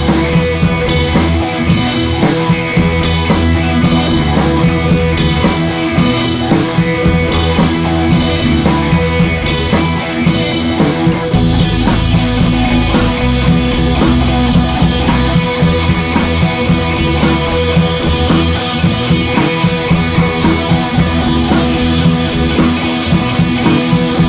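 Background rock music with drums, guitar and a steady beat.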